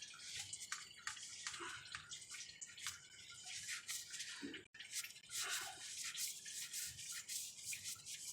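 Power steering fluid dripping and trickling out of the drained system, heard as faint, irregular little drips and ticks, with small clicks from the filter cap being twisted off.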